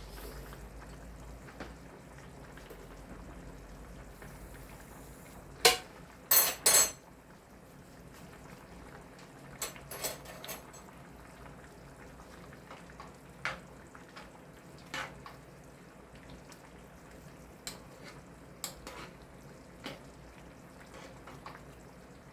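A spoon clinking and knocking against a cooking pot, three loud knocks about six seconds in and lighter taps scattered after, over the faint steady sound of the soup simmering.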